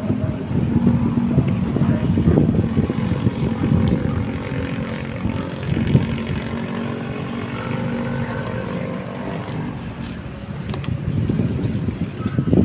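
Steady rumble of wind and tyre noise from a BMX bike riding along a concrete street. A motorcycle's engine hums as it passes in the middle.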